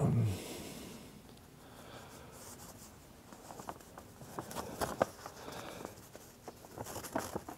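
A pause in a man's speech: a brief sound of his voice at the very start, then faint scattered clicks and soft rustling close to his lapel microphone, thickening in the last few seconds.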